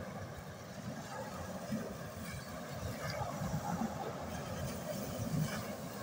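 Small sea waves breaking on a pebble beach and washing over the stones, the surf growing louder in the second half.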